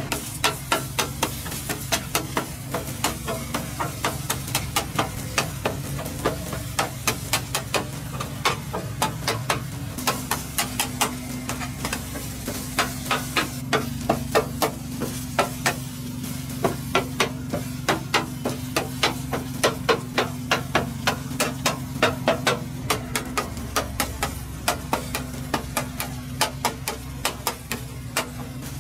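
Metal takoyaki picks tapping and clicking against the pan's wells as the batter balls are turned, about three sharp, irregular taps a second, over a steady low hum.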